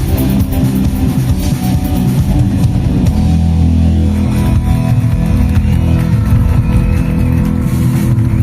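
Rock band playing live, with drum kit and electric guitar; the dense drumming gives way about three seconds in to a long held guitar chord.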